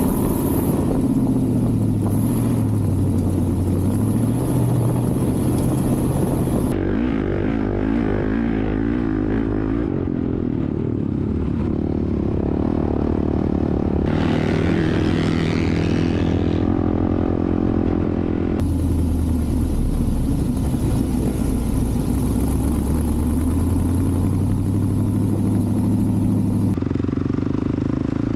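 Off-road vehicle engines running and revving across a series of cut-together clips, the engine sound changing abruptly about 7, 19 and 27 seconds in.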